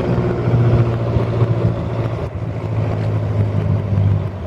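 An engine running steadily, a low drone that wavers slightly in pitch.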